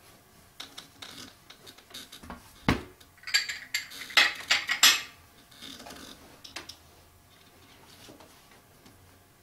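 China teacup and saucer clinking as they are set down on a glass-topped side table, with a dull thump near the start of the clatter, then faint handling sounds.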